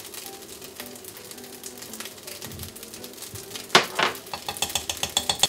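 Spatula stirring fried rice in a frying pan, with a low sizzle. Two loud knocks on the pan come a little after the middle, then a quick run of clicking taps near the end.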